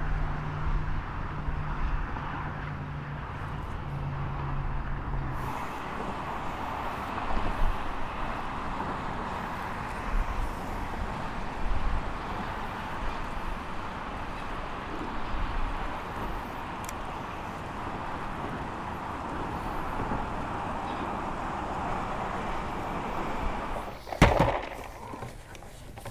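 Steady outdoor noise with a low engine hum during the first five seconds, then an even rushing noise with a few small knocks, and one loud knock near the end.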